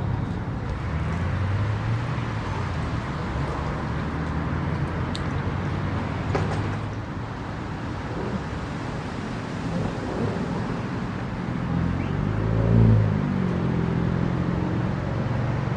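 Engines running at idle, with one engine revving up and back down briefly near the end.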